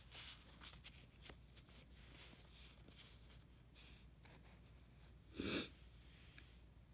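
Faint rustling and light taps of sheets of art paper being handled and shuffled, with one short, louder breath sound about five and a half seconds in.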